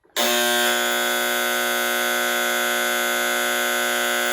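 Presto HeatDish Plus space heater's safety buzzer sounding one continuous, steady, loud tone, starting a moment in. It is set off by lifting the heater, its tip-over safety cut-out.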